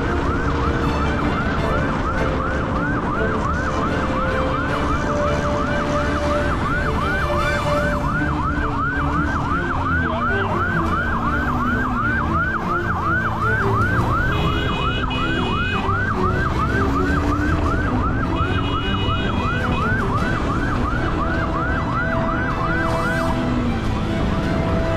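Police siren in a fast yelp, its pitch rising and falling about three times a second and stopping shortly before the end, with a vehicle running underneath.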